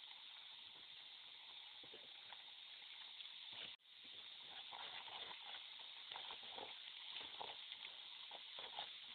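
Steady hiss of a pot of onion-and-spice curry cooking on a portable gas stove, cutting out for a moment just before four seconds in. In the second half, faint clicks and scrapes of a metal ladle stirring in the pot.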